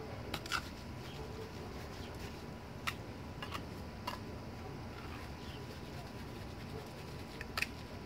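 Small hand trowel working wet cement mixed with basalt fiber chop: a few short scrapes and taps of the blade, about six in all, the sharpest near the start, around three seconds in and near the end, over a steady background noise.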